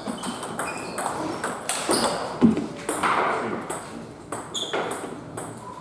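Table tennis balls being hit: irregular sharp clicks of celluloid-plastic balls off bats and the table, from the rally and from a neighbouring table, the loudest about two and a half seconds in.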